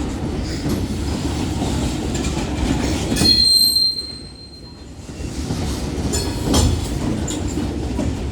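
Union Pacific manifest freight train's cars rolling past with a steady rumble and clacking wheels. A brief high wheel squeal comes about three seconds in, the rumble dips for about a second just after, then returns with sharp clacks.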